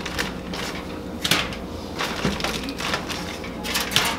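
Aluminium foil and a plastic zip-top bag crinkling in several short rustles as vegetables are pulled from the bag and laid on the foil by a gloved hand.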